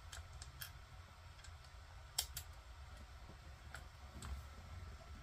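Faint scattered clicks of tiny screws and small plastic parts being handled and set into a mirror dash cam's mounting bracket. The sharpest click comes about two seconds in, over a low steady hum.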